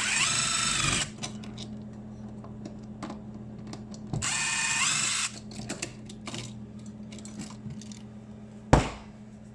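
Power drill run in two short bursts of about a second each, its whine rising in pitch and then holding. A single sharp thump comes near the end.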